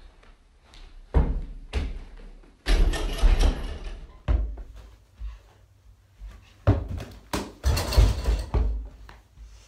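Repeated thumps and rattling bangs of an over-the-door mini basketball hoop shaking the wooden door as a small ball is dunked through it, mixed with jump landings on carpet. The bangs come in two clusters, with quieter single knocks between.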